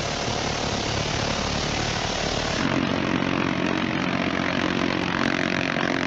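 Douglas AC-47 'Spooky' gunship: a steady, dense roar of its miniguns firing over the drone of its twin radial propeller engines, the engine drone coming up stronger about two and a half seconds in.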